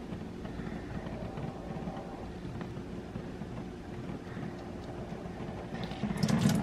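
Steady low background hum; about six seconds in, a brief louder splash as water is wrung out of soaked locs into the sink.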